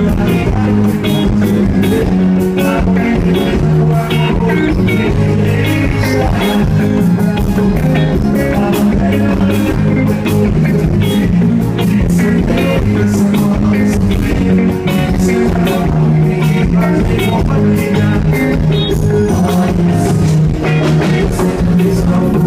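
Live sertanejo band music played loud: drums and guitars with the duo's voices singing through the PA.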